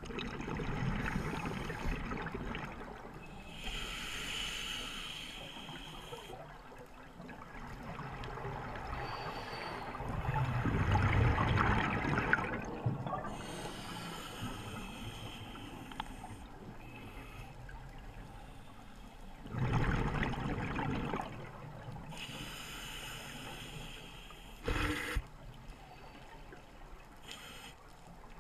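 Scuba diver breathing through a regulator underwater: three bubbling exhalations about ten seconds apart, each followed by the hiss of an inhalation through the demand valve. A brief sharp knock comes near the end.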